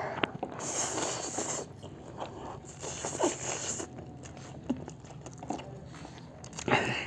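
Two people eating spicy instant noodles with chopsticks: close mouth noises of slurping and chewing, with a few short sharp clicks.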